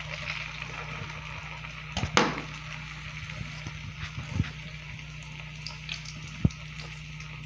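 Churro dough frying in hot oil in a pot: a steady bubbling sizzle. A few sharp clicks come through it, the loudest about two seconds in, then others about four and a half and six and a half seconds in, over a low steady hum.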